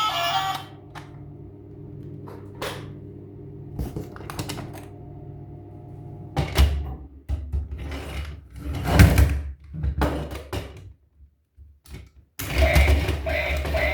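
Handling noises: scattered clicks and knocks over a faint steady hum, growing denser and louder about halfway through, then stopping for a moment before the end.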